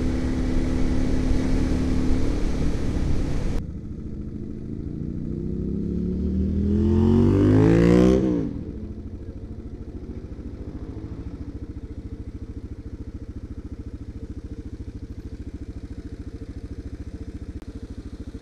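Motorcycle engine running under way with wind noise. About three and a half seconds in it drops, then the revs climb for about four seconds and cut off abruptly to a steady idle as the bike comes to a stop.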